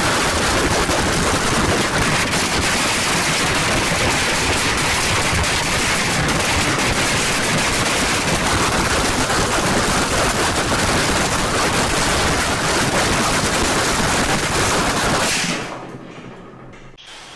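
Loud, dense crackling rattle of rapid sharp impacts, like sustained automatic gunfire, fading away near the end.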